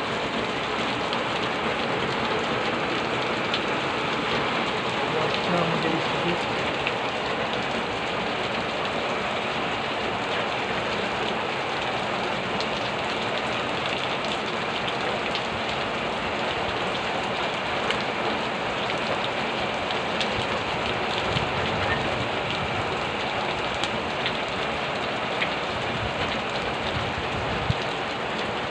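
Heavy rain falling steadily, with occasional sharper ticks of single drops striking nearby.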